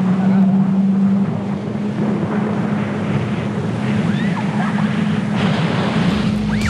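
Jet ski engine running at a steady pitch, with water and wind noise.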